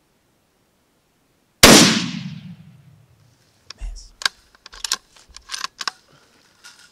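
A single rifle shot about a second and a half in: a sharp crack whose boom rolls away over a second and a half. A few quieter clicks and knocks follow.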